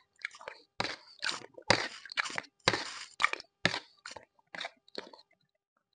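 Close-up eating sounds: red gelatin spooned from a plastic bowl and chewed, in a string of short, irregular wet smacks and scrapes that stops about a second before the end.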